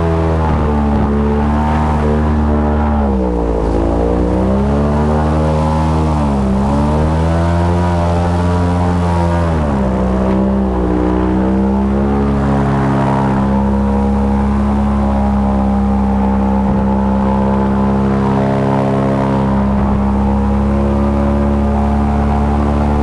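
Airboat's engine and air propeller running loud, the pitch dropping and climbing back three times as the throttle is eased off and opened again, then holding steady.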